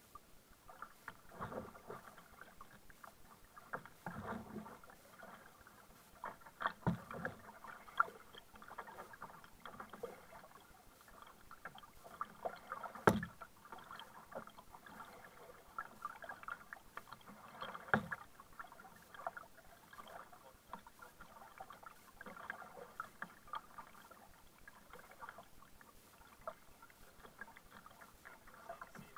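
Kayak paddle strokes: the blades of a double-bladed paddle dipping and splashing in the water every second or two as a sit-on-top kayak is paddled, with a few sharper knocks, the sharpest about halfway through.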